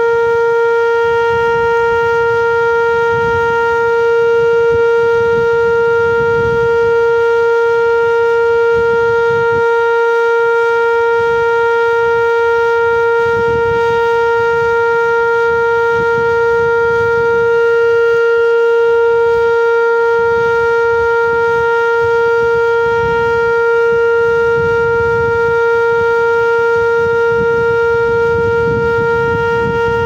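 Whelen 2720 electronic outdoor warning siren sounding one loud, steady tone that holds its pitch without rising or falling.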